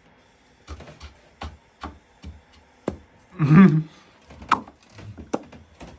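Irregular clicks and knocks of tools and parts being handled during engine reassembly, about a dozen separate taps. A brief voice sound, the loudest thing, comes about three and a half seconds in.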